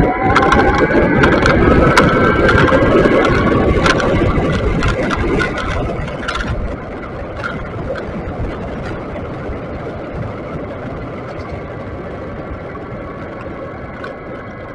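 Riding noise picked up by a helmet or handlebar camera in a housing: wind rush and rumble with passing traffic, loudest over the first six seconds and then easing. A whine climbs and then holds steady early on, with scattered sharp knocks from bumps.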